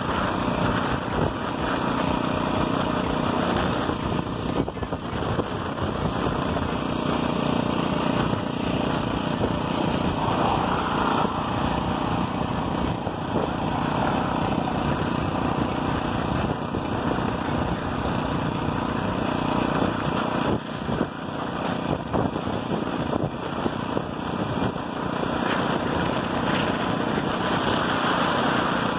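Motorized bicycle's small engine running steadily under way, mixed with road and wind noise.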